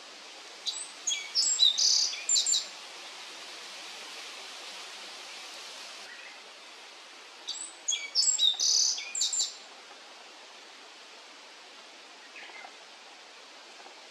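A bunting, taken to be a black-faced bunting, singing two short phrases of quick, varied high chirping notes about six seconds apart, with a faint single note near the end. A steady hiss runs underneath.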